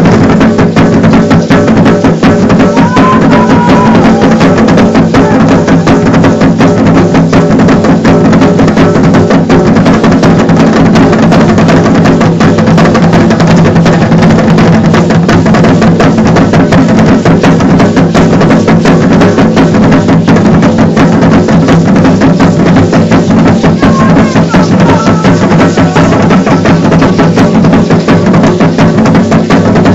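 Aztec dance drumming: drums beating a steady, driving rhythm, very loud, with the clattering of the dancers' seed-pod ankle rattles (ayoyotes) over it.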